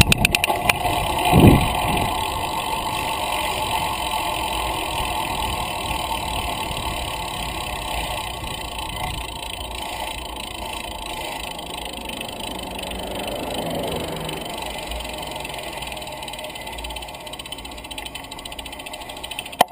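Wind buffeting the microphone, with tyre and road rumble, from a camera mounted on a road bicycle riding along. A steady rushing noise, with a loud gust near the start and another about a second and a half in, easing off slowly through the rest.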